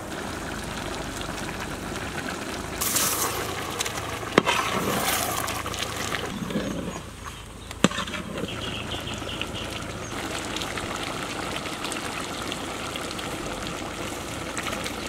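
Chicken and tomatoes cooking in a large wide metal pan over a wood fire, sizzling and bubbling steadily while being stirred with a long ladle. There are two sharp knocks, about four and eight seconds in.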